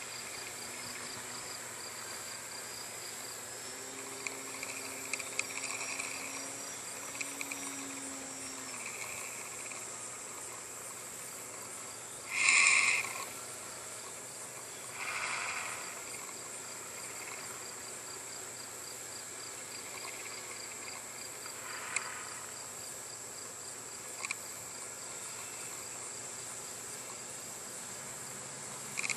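Steady outdoor ambience with a continuous high-pitched insect drone, a short loud sound about twelve seconds in and a weaker one a few seconds later.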